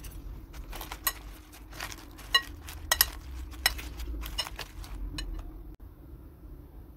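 Metal fork tossing salad leaves in a glass bowl, knocking against the bowl several times with short ringing clinks.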